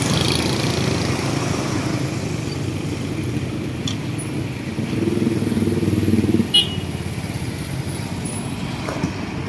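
Street traffic with motorcycles running past; one vehicle gets louder about five seconds in, and a brief high-pitched beep sounds about six and a half seconds in.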